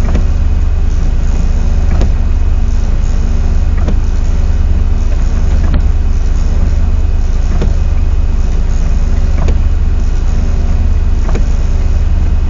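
Container truck's diesel engine running under way with a steady low drone, and a faint tick repeating about every two seconds.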